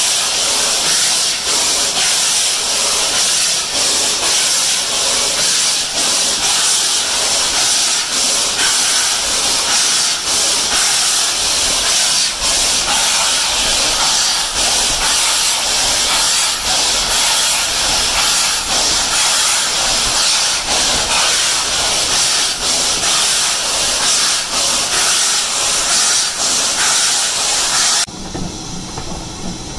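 Steam locomotive under way: a loud, steady hiss of steam with regular beats from the engine. Near the end the hiss cuts off suddenly, leaving the quieter rumble of the train running on the rails.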